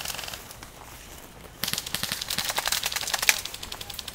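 Airsoft gun firing a rapid full-auto burst of about two seconds, starting about one and a half seconds in.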